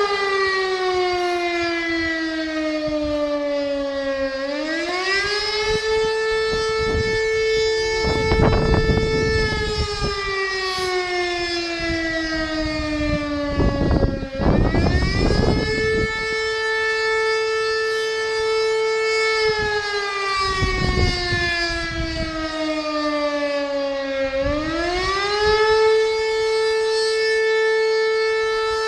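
Railway siren howling in a slow wail: the pitch climbs quickly, holds steady for several seconds, then slides slowly down, three times over. A few short bursts of low rumbling noise come and go beneath it.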